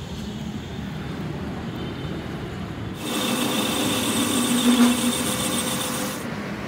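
Metal lathe cutting steel, the tool peeling off curled chips: a loud, steady scraping hiss with a hum. It comes in abruptly about three seconds in and cuts off abruptly about three seconds later. Before it there is a low, steady rumble.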